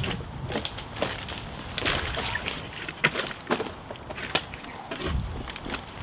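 Dry twigs and dead stems snapping and brush rustling as a person forces a way on foot through dense undergrowth, with scattered sharp cracks, the loudest a little after three seconds in and again past four seconds.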